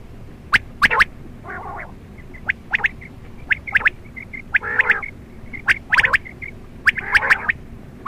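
Quail calling: sharp, clipped call notes in quick pairs and triplets, with soft short piping notes and a few fuller, harsher calls between them.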